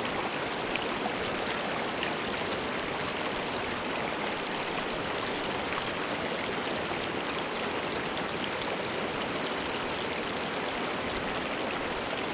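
Steady rush of a shallow river running over rocky riffles and small rapids.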